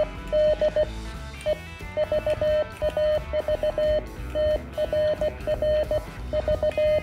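Morse code sidetone from a Venus SW-3B QRP CW transceiver as it is keyed: a single steady-pitched beep switching on and off in dits and dahs, with brief gaps between characters. Background music with drums plays underneath.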